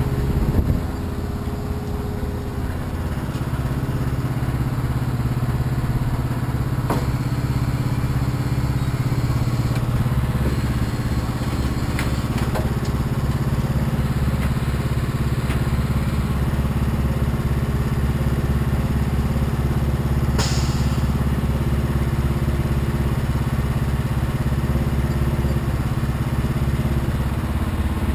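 Semi truck's diesel engine idling steadily, with a few metallic clicks and knocks from the trailer gear and a short hiss of air about twenty seconds in.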